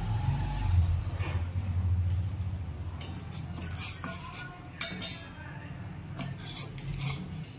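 A steel spoon stirs milk in a stainless steel pot, scraping and clinking against the pot's sides and bottom from about three seconds in. A low hum runs through the first two seconds or so, then fades.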